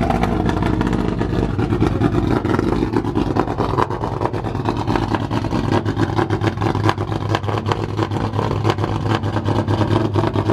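Dodge Challenger Hellcat's supercharged 6.2-litre V8 running loud at a steady idle, with a dense, pulsing exhaust note.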